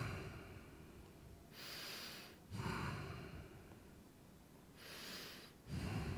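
A man breathing slowly and deeply while holding a seated forward fold: faint, long breaths in and out, about two full breaths.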